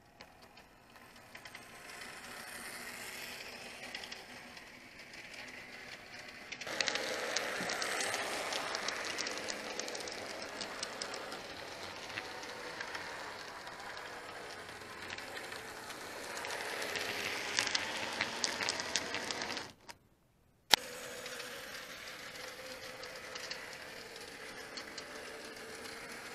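An N gauge Class 55 Deltic model locomotive runs round the layout hauling wagons. Its small electric motor whirs steadily and the wheels click and rattle along the track. It grows louder and rattlier twice as the train passes close by. Past the two-thirds mark the sound cuts out for about a second, then resumes.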